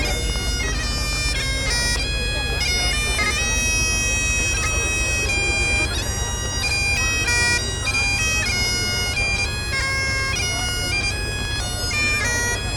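Bagpipes playing a tune, notes held and changing in steps over a steady drone, with a steady low rumble underneath.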